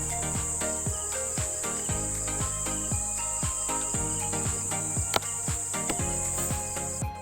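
Background music with a steady beat of low drum hits, over a continuous high-pitched cricket trill that cuts out briefly near the end.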